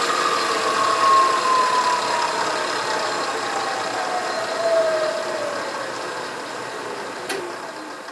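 Milling machine spindle motor spinning down after being switched off: its whine falls steadily in pitch and fades, with a single click about seven seconds in.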